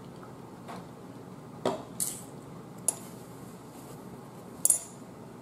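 Tableware at a meal: a drinking glass set down and dishes handled, giving five or so separate sharp clinks and knocks, the loudest about two seconds in and near the end.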